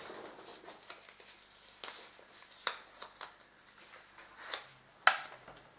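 A small folded paper slip being unfolded and flattened by hand: a run of crisp paper rustles and crinkles, with one sharper snap about five seconds in.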